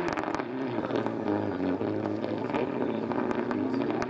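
Rally car engine at full stage pace, its note rising and falling repeatedly as the driver shifts gears and lifts, with a few sharp clicks scattered through it.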